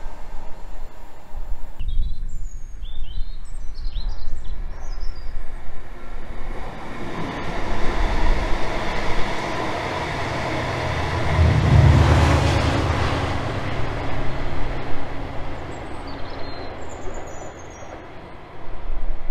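TransPennine Express Class 68 diesel-electric locomotive and its Mark 5A coaches passing. The low engine rumble builds to its loudest about midway, then fades as the train moves away. Birds chirp early on and again near the end.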